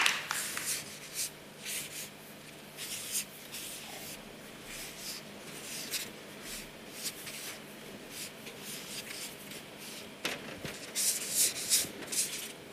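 Two felt-tip markers, one in each hand, drawing on flip-chart paper at the same time: short irregular scratching and squeaking strokes, louder and more frequent near the end.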